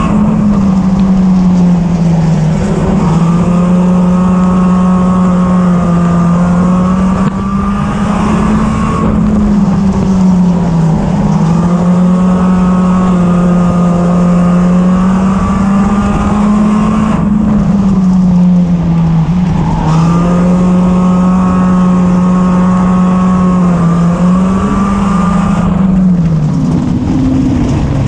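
Four-cylinder race car engine heard from inside the cockpit, running hard at high revs, its pitch dipping and climbing back about every eight seconds. Near the end the revs drop as the car slows.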